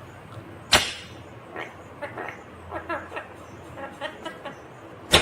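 Indian ringneck parakeet chattering in quick, short warbling notes, with a sharp loud note under a second in and another at the end.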